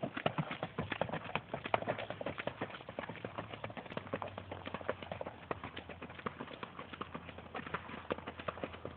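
Hoofbeats of a flat-shod Tennessee Walking Horse filly gaiting on a dirt track: a steady run of quick clip-clops.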